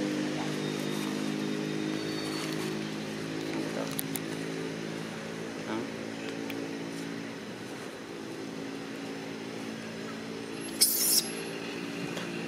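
A motor vehicle engine running steadily at idle, with a short loud burst of hissy noise near the end.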